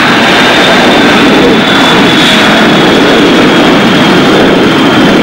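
Boeing 707-320C's four Pratt & Whitney JT3D turbofan engines at takeoff power during the takeoff roll and liftoff: loud and steady, with a high whine over the rush of jet noise.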